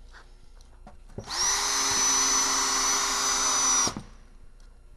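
Cordless drill driving a screw through a cast stone siding panel's flashing into the wall. The motor spins up about a second in, runs at a steady pitch for under three seconds, and stops suddenly.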